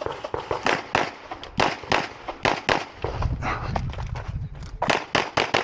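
Rapid strings of handgun shots fired during a USPSA stage, several a second. The shots slacken for about a second and a half, three seconds in, then come fast again near the end.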